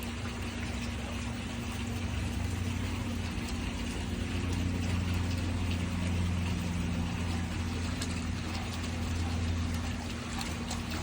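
Water running steadily, with a low motor hum underneath, as from a pond's pump.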